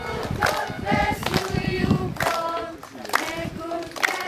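A large group of schoolchildren singing together in unison, with hand claps along the line.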